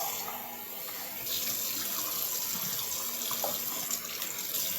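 Water running steadily from a sink faucet into the basin.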